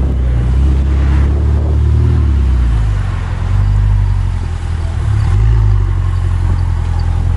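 Car engine running with a deep, steady rumble that swells twice.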